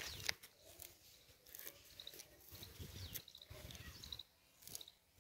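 Faint outdoor ambience: a bird calls every second or two with a short falling whistle followed by quick paired high notes. Low rumbles of wind or handling on the microphone run underneath, with a sharp click just after the start.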